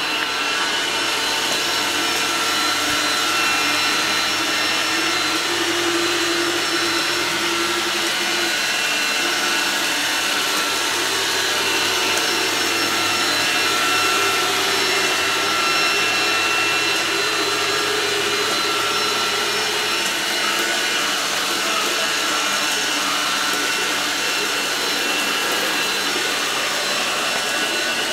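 Xrobot XR 510C robot vacuum cleaner running: a steady motor and fan noise with a high whine over it.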